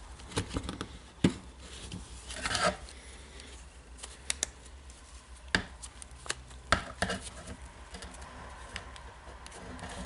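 Small plastic and metal parts of a Makita DDF484 drill's gear housing being handled and fitted by hand: irregular sharp clicks and taps, with a brief scraping rustle about two and a half seconds in.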